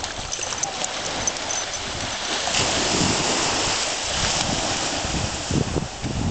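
Small waves washing up on a sandy beach: a steady surf hiss that swells about two and a half seconds in and eases after about four seconds. Wind buffets the microphone near the end.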